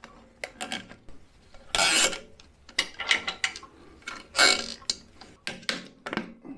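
Rubbing, clicks and short rasping zips as a new tire is stretched onto the spoked wheel of an older Atlas band saw and zip ties are pulled tight to hold it. The two loudest rasps come about two seconds in and again just past four seconds.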